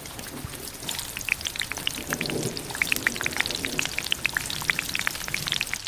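Steady rain falling, with many separate drops heard as quick, irregular ticks over a constant hiss.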